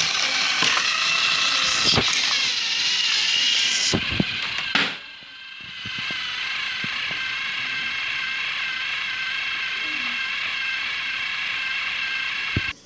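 Small electric motor and plastic gearing of a battery-powered toy train whirring with a steady high whine, with a few knocks in the first five seconds. It dips briefly about five seconds in, runs steadily again, then cuts off with a click near the end.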